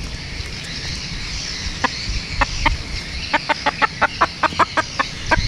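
Bantam fighting rooster clucking: a few short, sharp clucks about two seconds in, then a quick run of them at about six a second.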